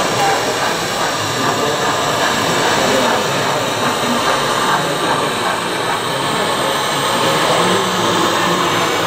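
Steady din of a model railway exhibition: a murmur of many voices blending with model trains running on the track.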